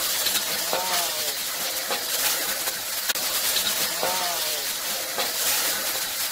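Beef cubes sizzling in oil in a wok over a high flame that flares up into the pan, with a spatula knocking and scraping against the wok a few times.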